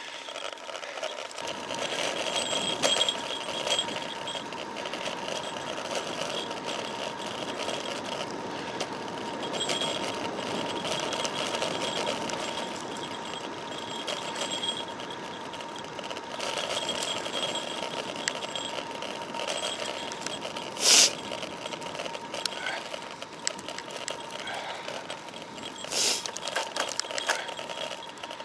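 Road bicycle riding on asphalt, heard from a camera mounted on the handlebars: steady tyre and wind noise with a fine rattle and a thin steady whine. Two short louder knocks come in the second half, about five seconds apart.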